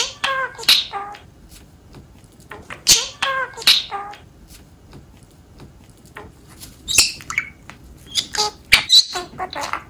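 Male budgerigar mimicking the Japanese phrase 'senpūki da' ('it's a fan') twice in its chattering, buzzy voice, then chirping and warbling.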